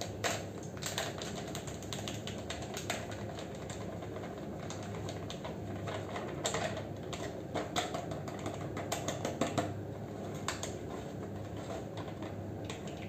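Foil-laminated packet crinkling and crackling in irregular clicks as it is squeezed and shaken to empty gulab jamun mix powder into a plastic bowl.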